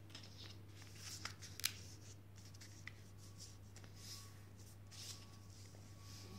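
A sheet of paper being folded and creased by hand: faint rustles and short crisp crackles, the sharpest a little over a second and a half in, over a steady low hum.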